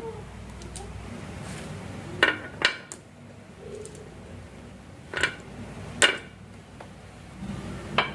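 Marbles clacking against each other and the track in a marble run: about five sharp knocks, two close together a few seconds in, two more past the middle and one near the end.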